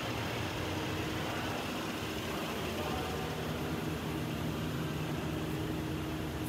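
Steady indoor room noise: a low hum with an even hiss and no distinct events.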